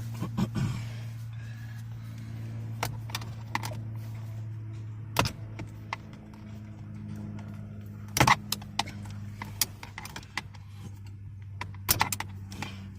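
Scattered clicks and clacks of hands working the plastic locking tab of a steering-wheel wiring connector, loudest as a short cluster about eight seconds in, over a steady low hum.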